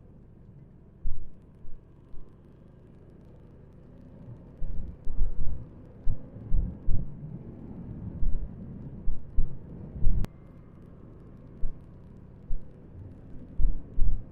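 Wind buffeting the action camera's microphone on a moving motorcycle: irregular low thumps that come thicker from about four seconds in, over a steady low rumble of the ride. A single sharp click about ten seconds in.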